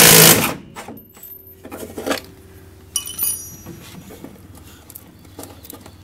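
Impact wrench hammering in a short, loud burst on a bolt that shears off, then scattered clicks and knocks of metal parts and a brief bright metallic ring about three seconds in.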